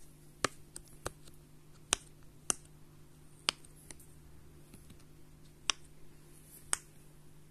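Silicone pop-it fidget toy, its bubbles pressed through one at a time by a finger, each giving a short sharp pop; about eight pops at uneven intervals.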